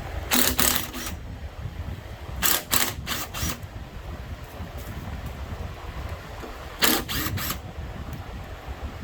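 Sharp clicks or taps, three to five in quick succession, coming in three groups: about half a second in, around three seconds in, and about seven seconds in, over a low steady rumble.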